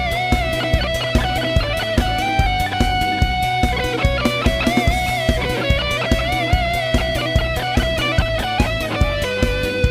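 Electric guitar, recorded through an M-Wave Tang G, playing a lead melody over a backing track with a steady drum beat and bass. The guitar holds and bends notes with vibrato.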